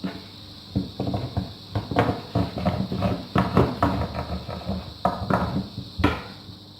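Oklava, a long thin wooden rolling pin, rolling out a sheet of dough on a board: a run of irregular clacks and knocks as the pin is pushed back and forth, with one sharp knock near the end.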